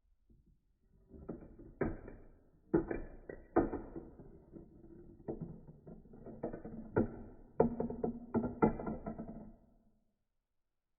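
Short music with a series of plucked, ringing notes, starting about a second in and stopping about ten seconds in.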